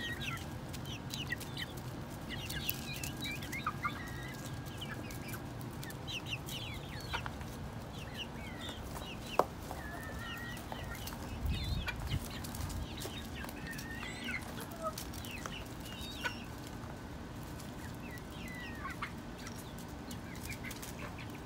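Backyard chickens, including 11-week-old chicks, clucking and giving short high peeps as they forage and peck. A single sharp click about nine seconds in, and a brief low rumble a little later.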